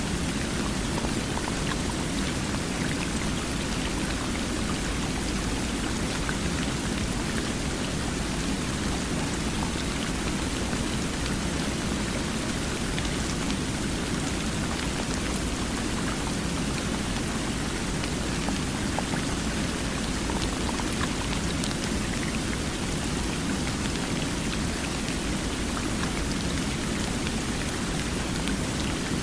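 Steady, unbroken rushing of water, even and constant, with scattered faint ticks of drops throughout.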